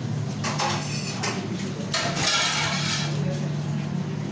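Stainless-steel pots and utensils clattering and clinking, over a steady low machine hum.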